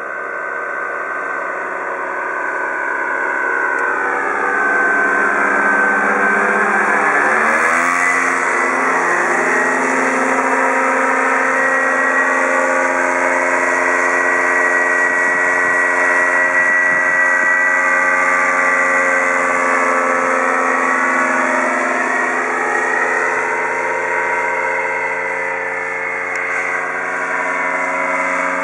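Paramotor's backpack engine and caged propeller droning in flight, growing louder over the first few seconds. Its pitch drops steeply about eight seconds in as it passes close by, then rises and falls again more gently later on.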